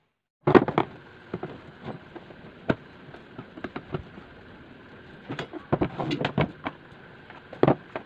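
Irregular clicks and knocks of a stainless-steel electric kettle being handled and reassembled: plastic and metal parts fitted together and worked with a screwdriver, the loudest knocks about half a second in.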